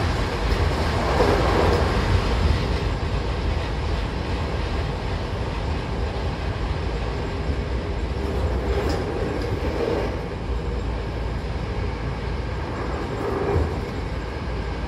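Hankyu Kobe Line electric train running between stations, heard from inside the car beside its closed doors: a steady rumble of wheels and running gear on the track.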